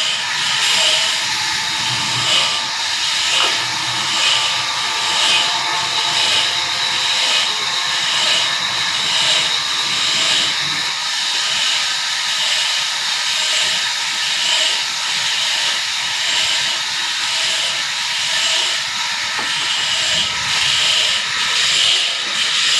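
Large sawmill saw cutting through a red walnut log: a steady, loud, high-pitched hissing whine with a regular pulsing beat.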